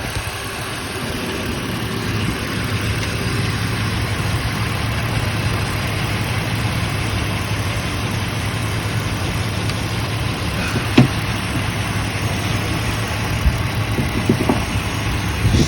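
Infiniti G35's V6 idling steadily, its exhaust fitted with test pipes. A single sharp click about eleven seconds in and a few short knocks near the end.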